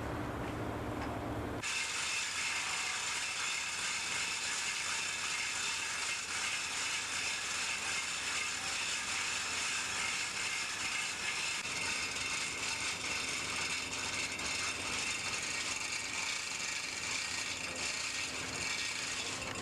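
A rapid mechanical clatter of fine ticks that starts abruptly about two seconds in and then runs steadily.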